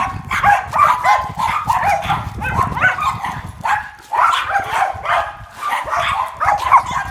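Schnauzer barking over and over in short, pitched yaps, a few a second.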